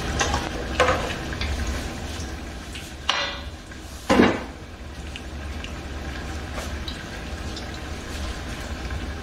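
Battered cauliflower pieces deep-frying in a saucepan of oil: a steady sizzle with many small crackling pops. A few knocks of pots or utensils break in, the loudest about four seconds in.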